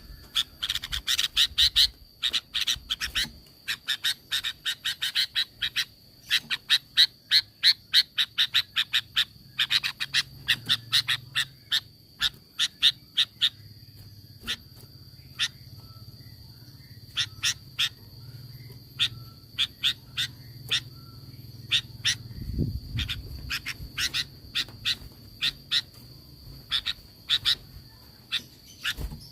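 Sooty-headed bulbul (kutilang) giving rapid trains of short, sharp chattering call notes, several a second, in bursts with short pauses between them. A thin, steady high-pitched tone runs underneath.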